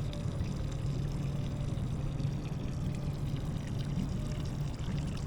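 Steady rush of river water around a boat, with a low steady hum underneath.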